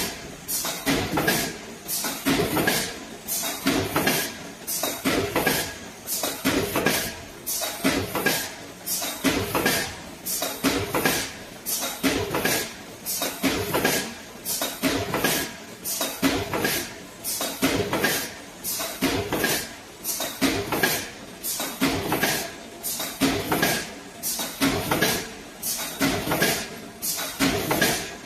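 Aluminum foil container making machine running production: its punch press and two-cavity mould stamp foil trays in a regular cycle, giving a rhythmic mechanical clatter that repeats about once a second.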